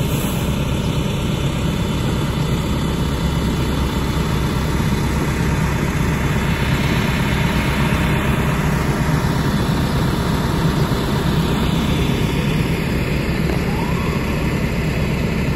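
Diesel engine of a parked MTA bus idling steadily up close, a low, even rumble.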